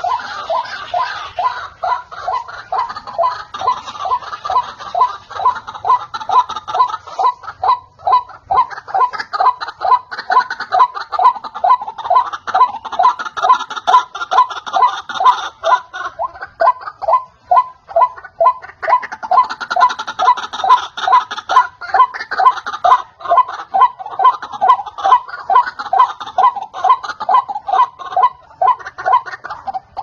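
Lure-call recording of white-breasted waterhens calling: a rapid repeated croaking note, about three a second, going on without a break, with fainter higher notes over it at times.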